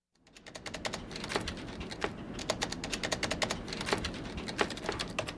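Typing on a keyboard: quick, irregular key clicks, fading in over the first second.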